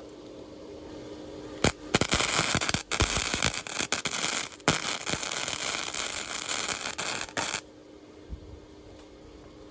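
Electric arc welding on a steel handle joint: the arc strikes briefly, then runs with a dense sputtering crackle for about five seconds before stopping abruptly. A steady hum runs underneath.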